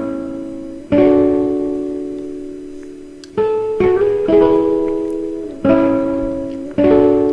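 Background music: a guitar strumming slow chords, each left to ring out and fade before the next is struck, about every one to two seconds.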